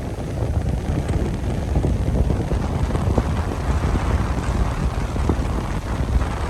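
Strong wind buffeting the microphone: a gusting low rumble whose loudness wavers constantly.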